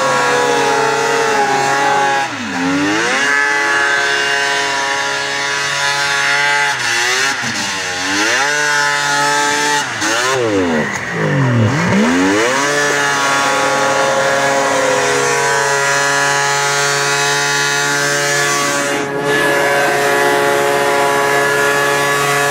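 1996 Polaris triple snowmobile's three-cylinder two-stroke engine running hard while spinning donuts. Its pitch swoops down and back up a few times as the revs drop and climb.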